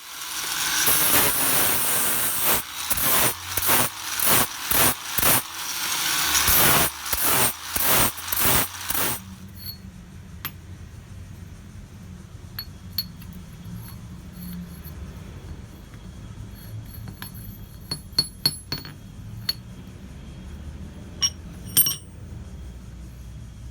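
Shop work on steel: about nine seconds of loud, harsh noise in rapid pulses, then a low steady hum with a few scattered light metallic clinks.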